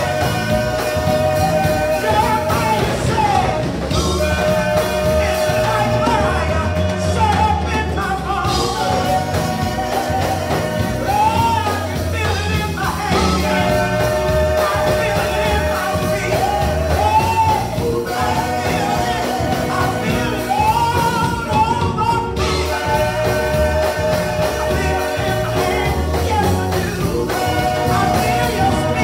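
Church praise team singing a gospel song into microphones over steady instrumental backing with bass and a beat.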